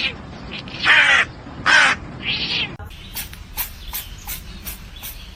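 Three short, harsh animal calls, then a run of quick, sharp clicks about three a second.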